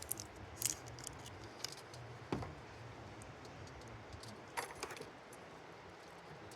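Scattered light clicks and clatter of a butter-substitute container being handled and fiddled open, with short clusters near the start, about two and a half seconds in, and around four and a half seconds in.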